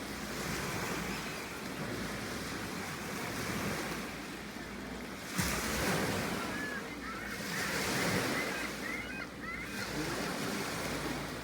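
Surf and wind, with wind buffeting the microphone. A single sharp knock comes about five seconds in, and short calls of gulls follow briefly in the middle.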